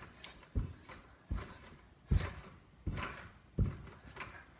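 Someone bouncing on a trampoline: a low thud about every three-quarters of a second, six in a row.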